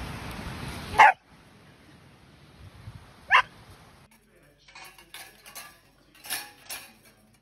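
A dachshund gives two single sharp barks, about a second in and again a couple of seconds later. Then stainless steel dog bowls clink and clatter several times as a dachshund noses at them.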